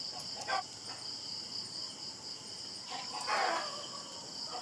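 Steady, high-pitched insect chorus, crickets trilling without a break. A short, louder noisy sound comes in about three seconds in.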